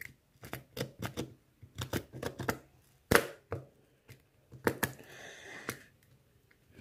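Ballpoint pen pressed and dragged against cardboard: a run of irregular sharp clicks and short scratches, with a longer scrape about five seconds in.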